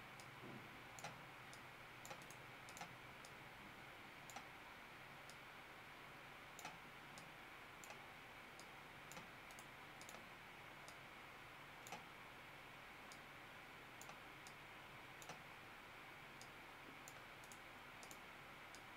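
Faint computer mouse clicks, a dozen or so at irregular intervals, over a steady background hiss.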